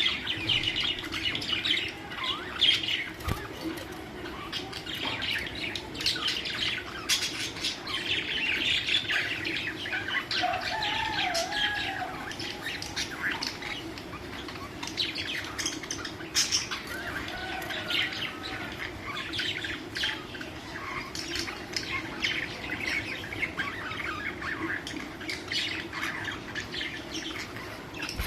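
A flock of budgerigars chattering and warbling: many overlapping chirps and squawks without a break, with a lower wavering call now and then.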